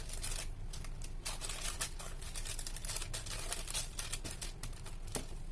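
Baking paper crinkling and rustling under hands pressing and spreading pizza dough on a tray: a quick, irregular run of short scratchy rustles over a low steady hum.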